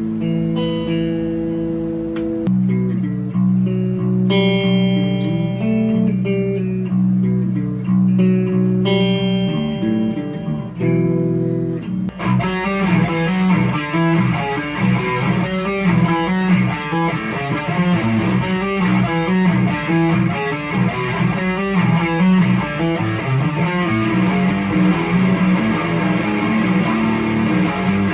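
Ibanez RG7421 seven-string electric guitar with DiMarzio Dreamcatcher 7 and Rainmaker 7 pickups, played through an amp. Held notes and chords for about twelve seconds, then fast, busy picking.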